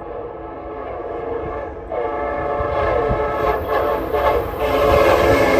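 Nathan K5LA five-chime air horn on an approaching Amtrak electric train, sounding a long continuous chord that grows louder, its notes sliding lower in pitch about two seconds in. The low rumble of the train runs underneath.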